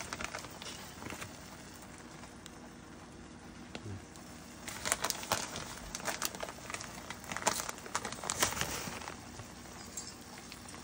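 Egg omelet with spinach and tomatoes cooking in a nonstick frying pan: a steady low hiss, with short bursts of crackling about halfway through and again near the end.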